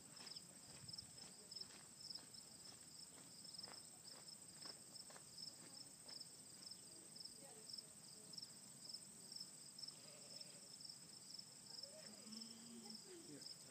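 Near silence with the faint, steady, high pulsing chirr of insects in a summer field. There are soft ticks in the first few seconds and a faint distant voice or call near the end.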